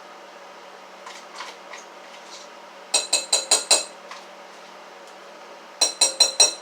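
A metal spoon rapped against the rim of a bowl: two quick runs of about five ringing clinks each, a couple of seconds apart.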